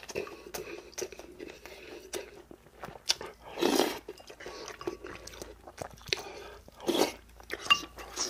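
Close-miked chewing and mouth sounds of a man eating rice, with small clicks of a spoon in a ceramic bowl. Two louder breathy noises come about 3.5 s and 7 s in.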